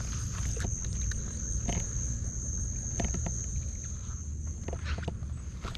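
Insects buzzing in one steady, high-pitched tone, over a low rumble and scattered light clicks.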